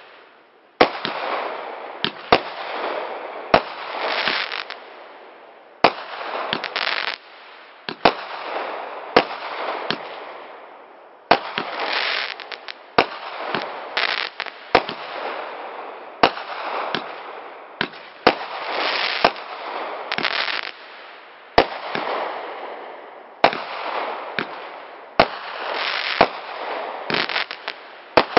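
Consumer aerial repeater cake firing shot after shot: about twenty sharp bangs a second or so apart, each followed by a swell of crackling from the bursting stars, crackling willow and crackling chrysanthemum effects.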